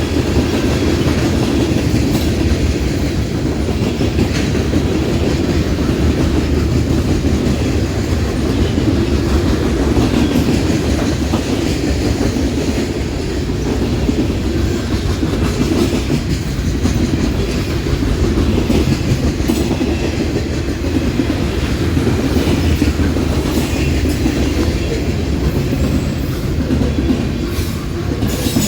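Norfolk Southern freight train's cars rolling past: a steady, even rumble and clatter of steel wheels on the rails.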